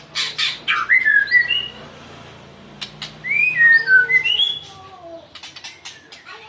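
White-rumped shama (murai batu) singing in two loud bursts: sharp, harsh rasping notes followed by clear whistled notes that slide down in pitch, with softer clicks and notes after. The keeper takes this for the bird's agitated, aggressive 'angry' song.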